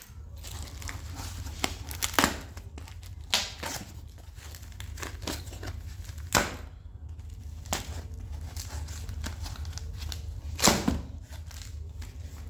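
Packaging crinkling and tearing as it is handled and opened, in irregular rustling bursts with a few louder rips, over a steady low hum.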